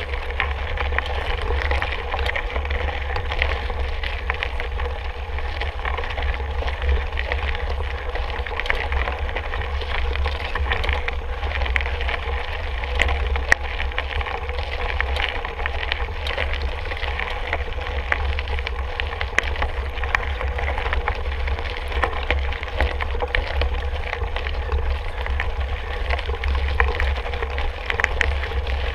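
Mountain bike riding on a dirt trail: tyres rolling over the ground with many small clicks and rattles, under a steady low rumble of wind buffeting the microphone.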